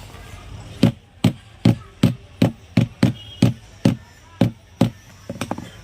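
Hammer tapping in a steady rhythm, about ten even blows at roughly two and a half a second, followed by a few lighter taps near the end.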